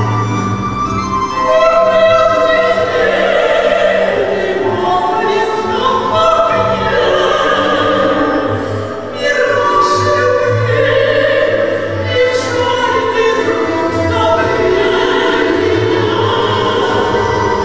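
Two women singing a Ukrainian song as a duet, accompanied by a folk-instrument ensemble.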